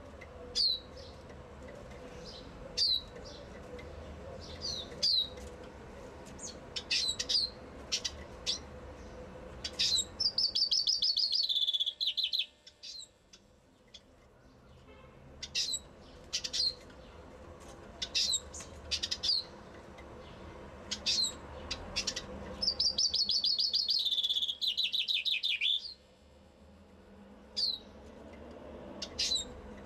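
Common chaffinch singing twice, about ten seconds in and again past twenty seconds: each song is a falling run of rapid notes that ends in a flourish. Between the songs it gives short, sharp single call notes.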